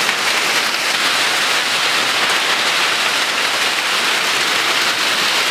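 Heavy downpour of rain and hail, a steady dense hiss of water and ice falling on awnings and a flooded street.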